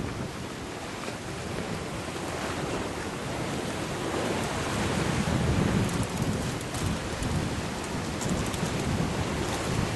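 Sea surf surging and breaking against volcanic rocks, swelling to its loudest about halfway through, with wind buffeting the microphone.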